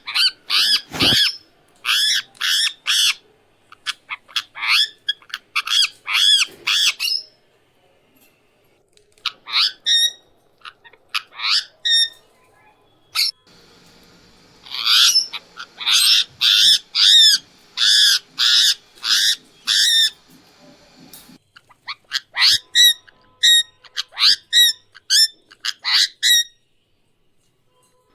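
Indian ringneck parakeet calling: short, shrill, repeated squawks in quick runs of three to six, with brief pauses between the runs.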